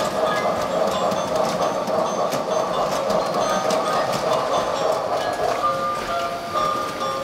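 Toy Christmas steam train running on its track, playing its built-in steam-train sound effects, mixed with tinny electronic Christmas music from the lit village pieces. The music's plain melody notes come through more clearly near the end.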